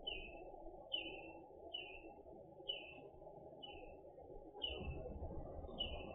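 A bird repeating a short, falling chirp about once a second, over a steady low rumble that grows louder a little before the end.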